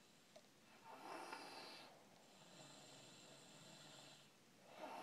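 A baby snoring faintly: a louder, noisy in-breath about a second in, a softer, longer out-breath after it, and the next loud breath starting near the end.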